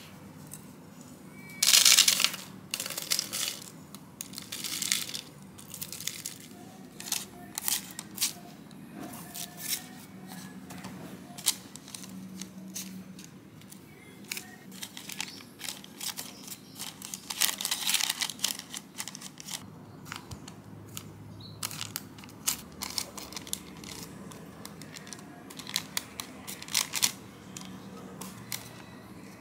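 Silicone spatula spreading and pressing buttered digestive-biscuit crumbs into a loaf tin lined with baking paper: irregular scraping, crunching and paper rustling, loudest about two seconds in and again around eighteen seconds.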